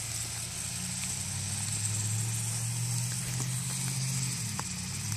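Steady low hum of an idling engine, with a steady high-pitched hiss over it.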